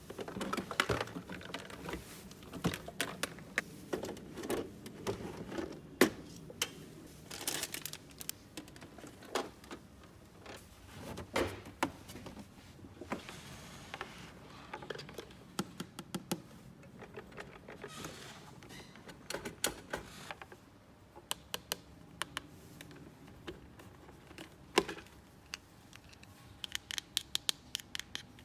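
Small plastic toy parts and packaging handled close to the microphone: irregular clicks and taps with a few short rustles, and a quick run of light clicks near the end.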